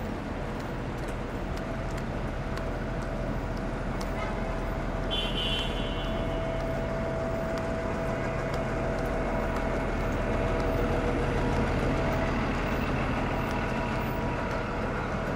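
City street traffic: vehicles running and passing steadily with a constant low engine hum. A brief high-pitched tone sounds about five seconds in.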